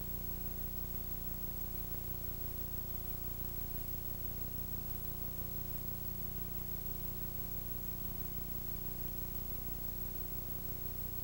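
Steady electrical hum with an even hiss, the background noise of a VHS recording that has been copied several times. No sound of the screwdriver or the mechanism can be heard.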